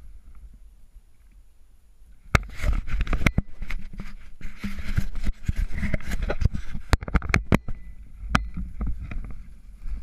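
Rustling of dry leaves and brush with irregular knocks and clicks of gear and camera handling as a person pushes low through woodland undergrowth, starting about two seconds in after a quiet start.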